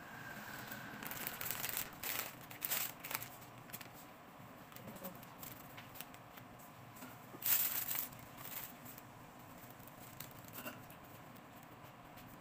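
Papery rustling and crinkling as thin lumpia wrappers are peeled apart and handled over plastic sheeting. It comes in short bursts: several in the first few seconds, and the loudest a little past the middle.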